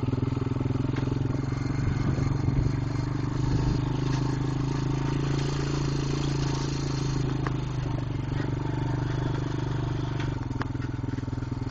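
ATV engine running steadily at a low, even cruising speed, a constant low hum that eases slightly about two-thirds of the way through.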